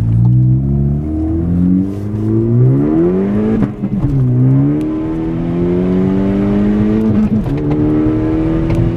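Car engine accelerating, its pitch climbing and then dropping at gear changes about three and a half and seven seconds in, settling to a steady cruise after the last change.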